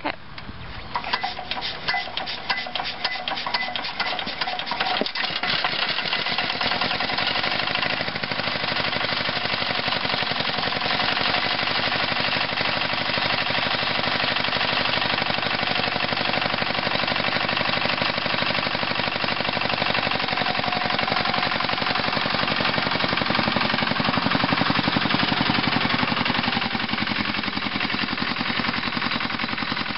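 Farymann single-cylinder diesel engine of a Jacobsen Chief garden tractor catching after a hand-crank start. It fires unevenly for the first few seconds, then settles into a steady, rapid knocking run as the tractor is driven off.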